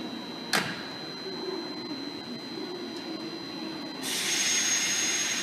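JR 201 series electric train standing at a platform with a steady hum. About half a second in there is a sharp click, and about four seconds in a loud hiss of air starts and carries on.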